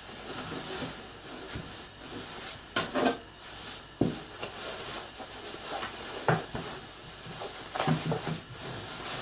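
Hands pushing fibre stuffing into a fabric toy body and squeezing it into shape: soft rustling of stuffing and cloth, with a few short knocks against the wooden table.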